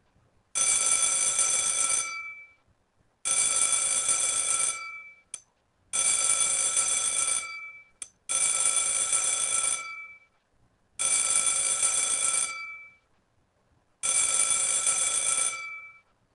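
Bell-like electric ringing, like a telephone bell, in six bursts about every two and a half to three seconds. Each burst rings for about a second and a half, then dies away quickly, with a short click after the second and third bursts.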